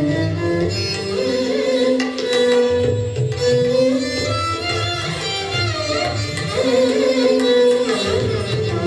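Carnatic dance music for Bharatanatyam: a melodic line with sliding ornaments over drum strokes.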